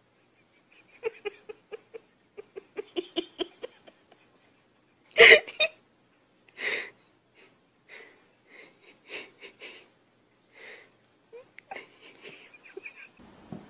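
A person laughing in breathy, wheezing bursts of quick pulses, with the loudest burst about five seconds in.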